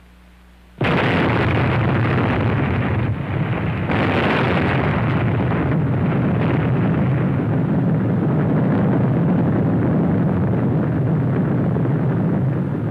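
Atomic bomb explosion heard on a film soundtrack: a sudden loud blast about a second in, a second surge a few seconds later, then a dense, sustained rumble that lasts about twelve seconds before falling away at the end.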